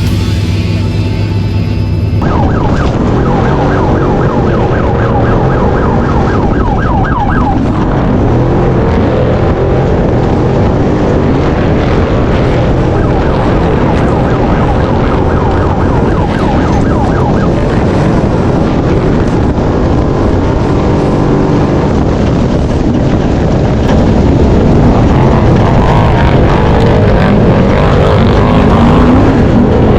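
Off-road race truck engine running hard at high revs, its pitch repeatedly climbing and dropping as the driver works the throttle and gears. It gets louder near the end.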